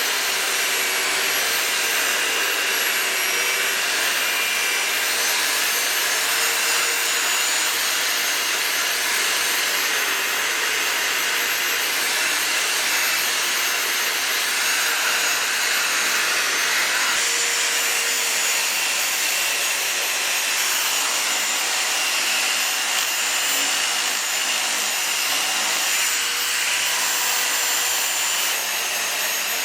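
Angle grinder running steadily with a high whine, its disc grinding against wood.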